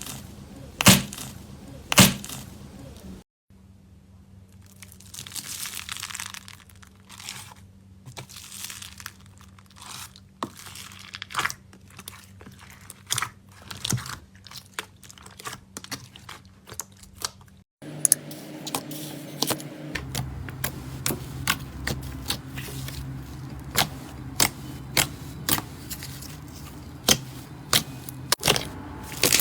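Slime being handled, crackling and popping in irregular sharp clicks. The sound changes abruptly about three seconds in and again about eighteen seconds in.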